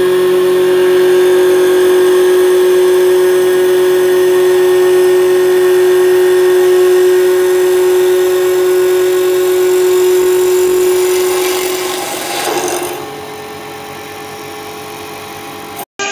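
CNC wood lathe turning a wooden spindle, its cutter shaving the wood with a loud, steady whine at one pitch. About thirteen seconds in, the whine stops and the machine runs on more quietly.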